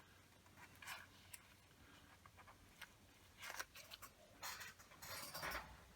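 Faint, scattered clicks and light scrapes of a knife lifting a small sticker off its backing sheet.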